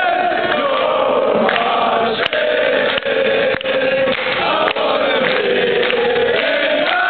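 A crowd of Manchester United football fans singing a chant together loudly, the melody held in long sustained notes. A few sharp knocks cut through the singing near the middle.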